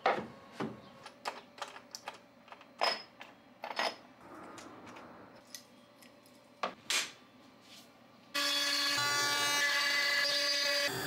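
Scattered knocks and clicks of boards and hold-down clamps being handled on a CNC bed. About eight seconds in, the CNC 6090 router's spindle suddenly starts cutting a pine board with a loud, steady, high-pitched whine.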